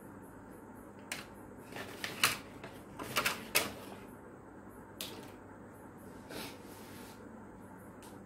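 Plastic fan-housing parts being handled and set down on a workbench, giving a series of light clicks and knocks. The loudest come in a cluster between about two and four seconds in, with a few more around five and six seconds.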